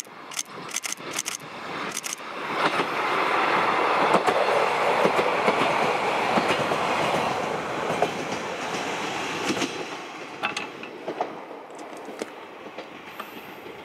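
KiHa 47 diesel railcar passing by. A few sharp wheel clicks come in the first two seconds. The train noise then builds, stays loud for several seconds and fades away.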